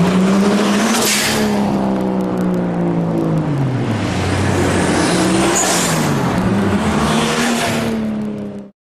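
A car engine revving, its pitch sinking over a few seconds and then climbing again, with loud whooshing rushes about a second in and twice more later on. It cuts off suddenly near the end.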